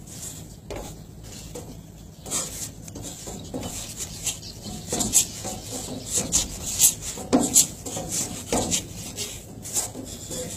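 A person shadow boxing: quick, sharp, hissy breaths and scuffs come in irregular flurries, several a second, busiest in the middle, over a steady low hum.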